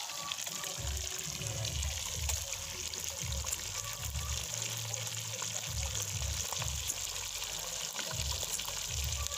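Fish frying in a pan of hot oil: a steady sizzling hiss, with irregular low rumbles underneath.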